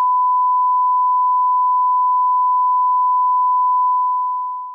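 A steady electronic beep at a single pure pitch, like a test tone, held unbroken for about four seconds and then fading out near the end.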